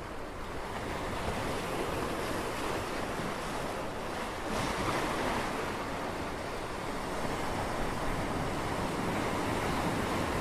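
Ocean waves washing and surging, a steady rushing noise that swells a little about four to five seconds in.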